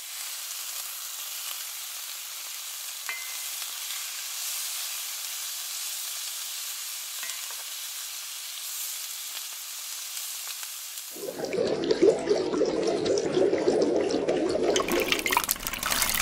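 Beef shank in gravy sizzling steadily on a hot sizzling plate. About eleven seconds in, a louder, deeper sound takes over, and near the end broth is poured from a pot into a bowl with a splashing, crackling pour.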